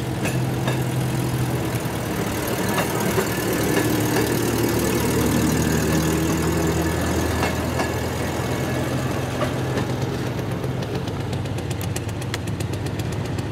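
Locomotive engine running steadily with a low, wavering hum. A rapid, faint ticking joins it in the last few seconds.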